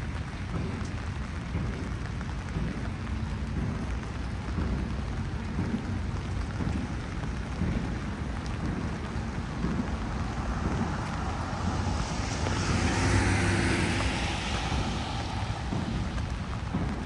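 Steady rain falling on pavement. About three-quarters of the way through, a vehicle passes on the wet road, its tyre hiss swelling and then fading.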